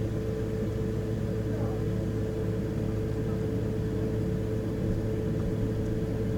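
Steady hum of a running freezer: a low drone with a constant higher tone above it.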